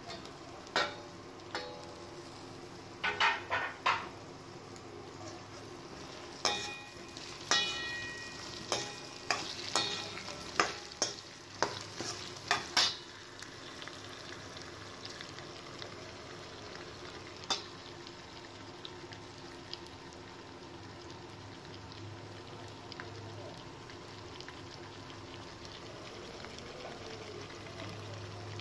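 Steel spoon knocking and scraping against a stainless steel wok, many sharp ringing strikes through the first half and one more later, over the steady sizzle of potatoes, tomatoes and onion frying in oil.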